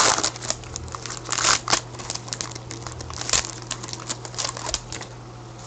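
Hockey card pack wrapper crinkling and tearing as it is pulled open by hand, a string of crackles with a couple of louder rips, dying down toward the end.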